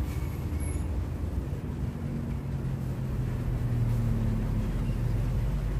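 A steady low rumble with a faint hum.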